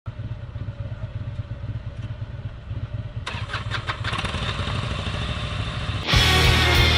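A motor vehicle engine running with a steady low throb. Loud music with guitar cuts in about six seconds in.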